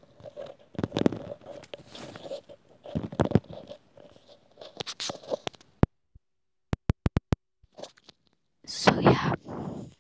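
Close-up scratching and rubbing as a white wired earbud is handled right at the microphone. About six seconds in the sound drops out, leaving a few sharp clicks, then louder rustling starts near the end.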